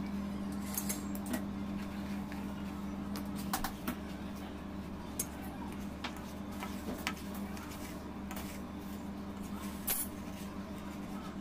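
Scattered light clicks and scrapes of a metal palette knife and hands working on a cardboard cake board while a cake is decorated, the sharpest click near the end, over a steady low electrical hum.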